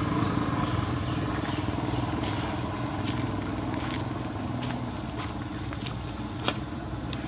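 A motor vehicle engine running steadily with a low hum that slowly fades, with scattered light clicks and crackles on top.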